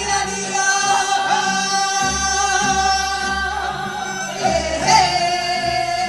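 Cast of a Korean sori-geuk (folk musical play) singing on stage over instrumental accompaniment with a low pulsing bass. The voices hold one long note for about four seconds, then move to a second, slightly lower note held near the end.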